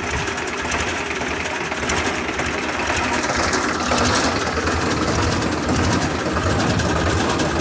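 Escorts Powertrac 434 tractor's three-cylinder diesel engine running steadily, growing louder about two seconds in.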